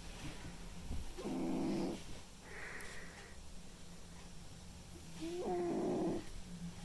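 Domestic cat snoring in its sleep: two snores about four seconds apart, each lasting about a second, with a soft hissing breath between them.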